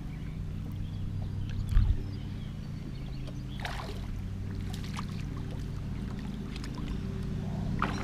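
A motor running steadily with a low hum, with one thump about two seconds in and a few light clicks.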